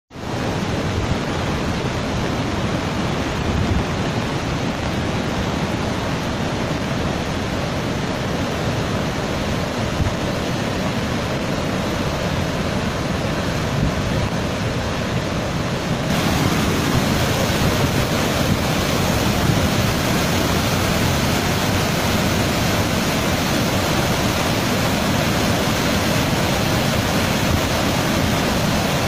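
Athirappilly waterfall and the Chalakudy river in full flood: a steady, loud rush of muddy floodwater. It grows louder and brighter a little past halfway.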